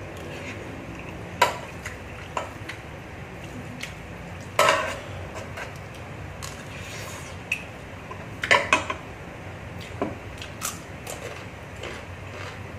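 Chopsticks and a metal spoon clicking and scraping against a non-stick electric cooking pot while spicy instant noodles are eaten from it, with two louder eating noises, one about a third of the way in and another about two-thirds in.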